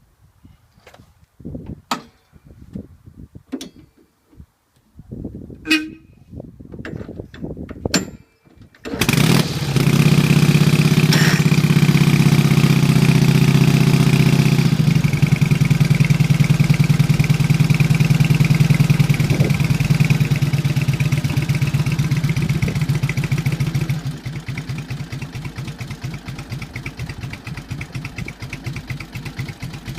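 1946 Indian Chief's flathead V-twin engine: a few scattered clicks and knocks, then the engine catches about nine seconds in and runs at a fast idle. Near the end it drops to a slower, quieter idle with an uneven pulsing beat.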